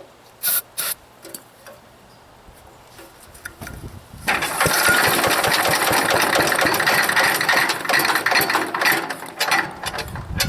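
The old gasoline engine of a wood chipper cranking over steadily for about six seconds, beginning about four seconds in, after two short clicks. It turns over a long time without clearly catching: an engine that has sat unused, with a dirty carburetor, trying to fire.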